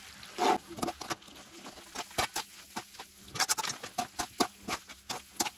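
Metal tongs clicking and scraping against a metal pan while tossing spaghetti, in irregular light clacks that come in quick clusters.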